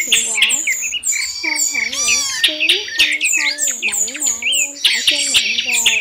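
Dense, layered chorus of thrush calls and song, many birds overlapping at once: a mixed lure recording used to draw migrating thrushes into mist nets. High, thin chirps and quick downslurred calls run throughout, with lower wavering notes underneath.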